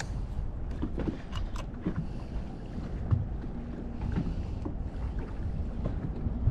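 Wind rumbling on the microphone over choppy waves lapping against a boat's hull, with scattered short knocks and slaps of water on the hull.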